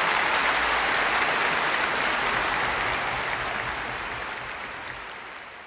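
Applause: dense, steady clapping from many hands that fades away gradually over the second half.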